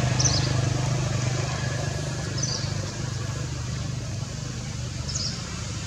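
A low engine rumble, loudest at the start and slowly fading, with a short high chirp about every two and a half seconds.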